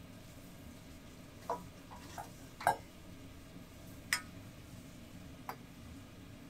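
Broth boiling steadily in a large aluminium stockpot, with about five sharp metal clinks of a stainless steel ladle against the pot as the foam is skimmed off. The loudest clink comes a little under three seconds in.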